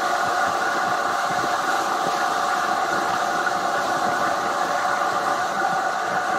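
2018 Triumph Tiger 800 XRt's inline three-cylinder engine running steadily at a constant cruising speed, a steady hum with no change in pitch.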